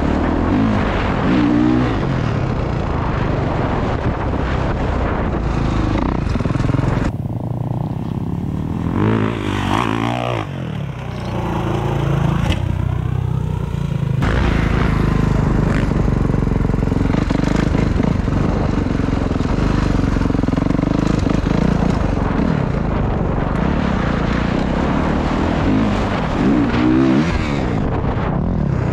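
Dirt bike engine revving up and dropping back again and again while riding over jumps, close to a helmet-mounted microphone. Between about 7 and 14 seconds the sound changes, with the engine note sweeping up and down.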